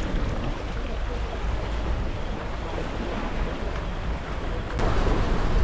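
Small boat under way: a steady low engine drone under the rush of water and wind buffeting the microphone, growing louder about five seconds in.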